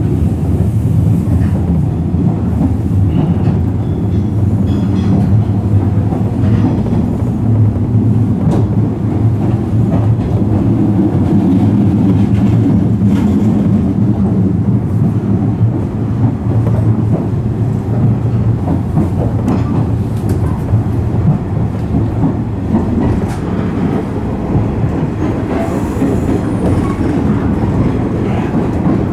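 JR West 103 series electric train running along the track: a steady low rumble of wheels on rails, with faint scattered clicks.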